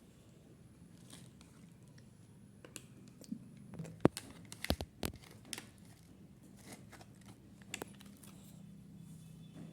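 Plastic packaging being crinkled and torn open by hand, a cluster of sharp crackles and clicks about four to five and a half seconds in, then a few lighter crackles.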